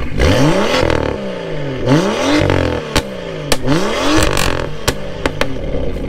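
BMW engines revved in a run of quick blips, each rising and falling in pitch, with several sharp cracks in the second half.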